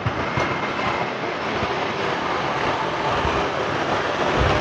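Steady rushing, rumbling noise of passing vehicle traffic, with a few low thumps near the end.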